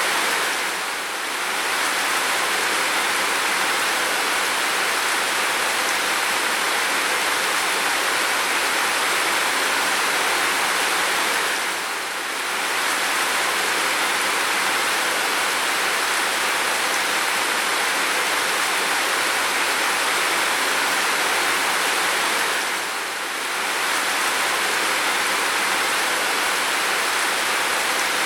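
Heavy rain falling as a steady, even hiss. The level dips briefly three times, about every eleven seconds.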